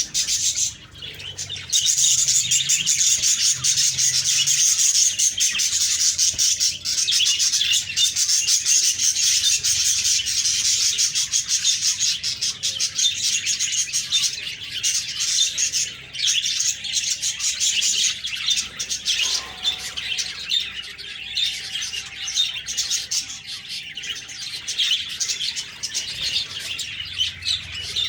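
A group of budgerigars (parakeets) chirping and warbling in a dense, continuous chatter, which thins out somewhat in the last third.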